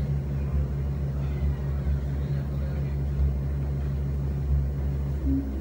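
Modular synthesizer playing a low, steady drone, with a higher held tone coming in near the end.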